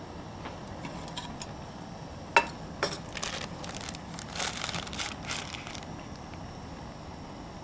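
Plastic instant-noodle packet being handled and torn open: a sharp crack about two and a half seconds in, then a few seconds of crinkling.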